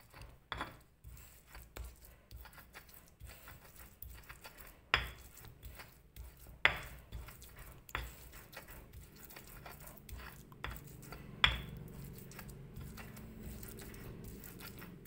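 Stone pestle grinding paste in a stone mortar: irregular scraping and knocking of stone on stone, with a few sharper knocks scattered through and a steadier rubbing in the last few seconds.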